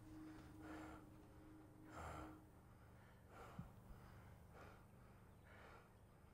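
A frightened old man breathing hard through an open mouth, faint gasping breaths about once a second.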